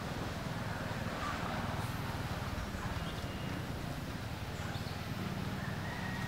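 Outdoor background: a steady low rumble, with a few faint, short, high-pitched chirps scattered through it.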